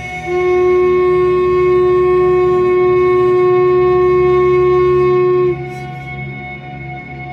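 Background ambient music: a single long held note, like a wind instrument, over a steady sustained drone. The held note stops about five and a half seconds in, and the drone continues.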